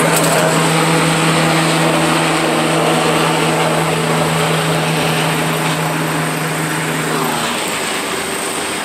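NYPD police helicopter flying low overhead, its rotor and engine running steadily and easing off slightly toward the end as it moves away. Cicadas buzz steadily in the treetops underneath.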